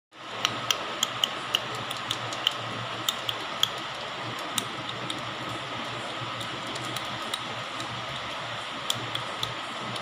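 Steady hum and water hiss of a running fish tank, with irregular sharp clicks: many in the first four seconds, a few more near the end.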